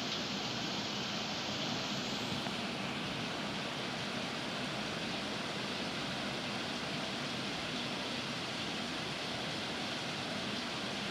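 Heavy rain pouring down in strong wind: a steady, even rush of noise without breaks or single drops standing out.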